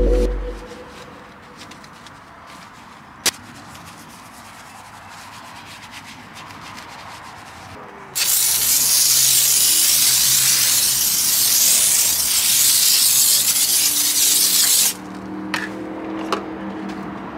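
A wheel brush scrubbing faintly over a wet alloy wheel, with one sharp click about three seconds in. Then a hand pump foam sprayer hisses loudly and steadily for about seven seconds as it coats the wheel in foam, and cuts off suddenly.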